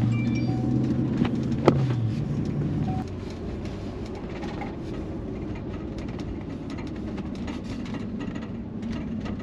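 Steady low vehicle engine rumble heard from inside a parked police car's cabin. A louder low hum fades out about two seconds in, and there is one sharp click just before that.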